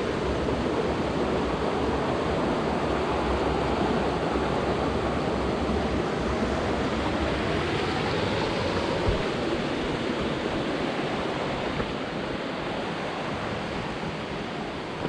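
Rushing water of a waterfall or cascading creek: a steady, dense rush of noise that eases slightly near the end.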